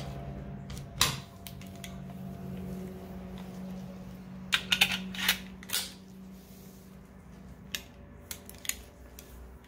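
Sharp metallic clicks from a Colt Series 70 Mk IV .45 automatic pistol as its parts are handled and worked during reassembly: one loud click about a second in, a quick run of clicks around the middle, and three lighter clicks near the end.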